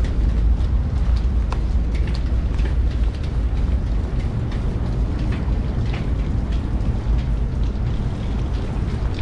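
Rain and storm wind buffeting the microphone: a steady heavy low rumble with scattered sharp ticks of raindrops.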